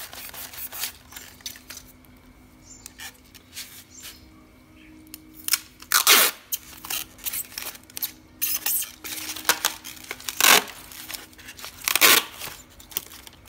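Clear packing tape ripped off its roll in three loud, brief screeches, about six, ten and twelve seconds in, and pressed around a styrofoam box, with small crinkles and clicks between. A faint steady low hum runs underneath.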